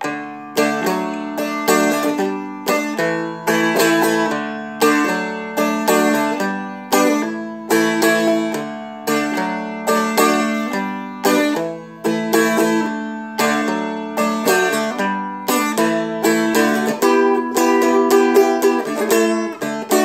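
Seagull Merlin, a small dulcimer-style fretted instrument, strummed in a steady rhythmic chord pattern with muted, percussive strokes worked in between the ringing strums.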